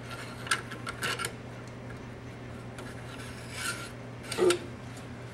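Steel through-bolts being pushed through a pool pump motor's end bells, scraping and clinking against the metal in a few short bursts as they are fed toward the threads.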